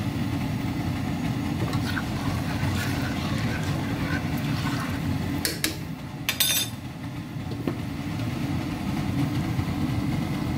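Steady low rumble of a gas stove with pots of rice and broth boiling on it, with faint bubbling. A few sharp knocks come about five and a half and six and a half seconds in.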